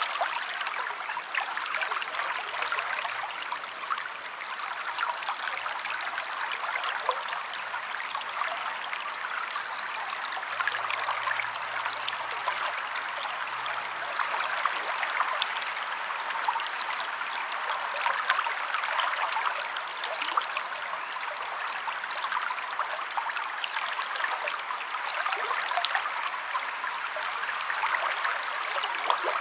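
River water flowing steadily, a continuous even rush of trickling and splashing. A few brief, faint high chirps of birds come through now and then.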